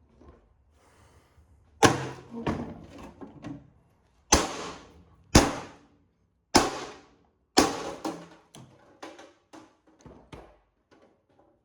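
A series of sharp knocks and clunks from parts being handled during dismantling: about six loud ones roughly a second apart, with lighter rattles and clicks between them.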